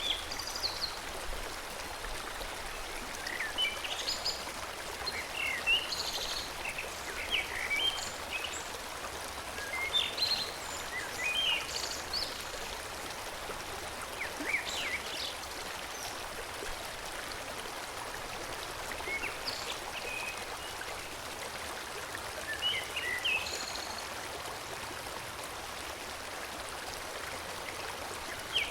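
Forest stream flowing steadily, with songbirds singing short chirping phrases every few seconds over the sound of the water.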